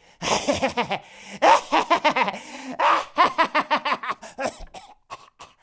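A person's snickering laugh, a run of short chuckles over several seconds, in the manner of a character gloating over a scheme.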